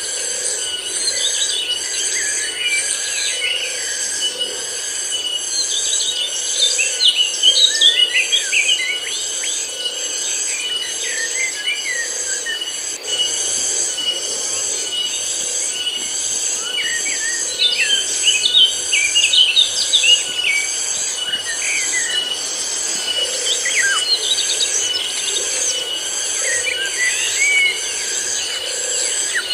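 Tonggeret (cicadas) droning in a steady, high, pulsing chorus, with birds chirping over it in clusters of quick calls that come thickest about a quarter of the way in, again past the middle, and near the end.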